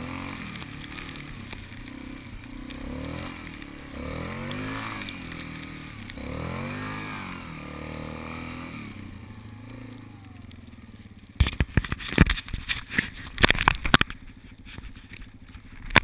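ATV engine running as it rides through snow, revving up and easing off a few times. Near the end there is a burst of loud knocks and scrapes close to the microphone.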